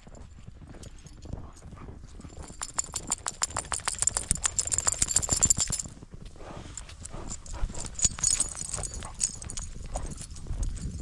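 Footsteps crunching through deep fresh snow, a dense run of crisp crunches loudest between about two and six seconds in, then lighter crunching.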